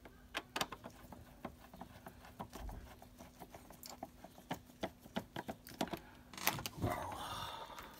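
Hand screwdriver turning a screw into the plastic base of a pressure washer: a run of small, irregular clicks, several a second. Near the end there is a louder scraping stretch.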